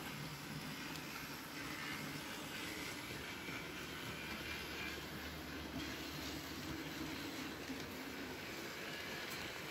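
HO-scale model train, a Glacier Express set, running steadily past, with its electric motor humming and its wheels rolling on the rails.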